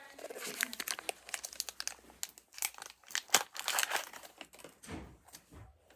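Wrapper of a Match Attax football card pack crinkling and tearing as it is opened, a rapid run of irregular crackles that thins out near the end.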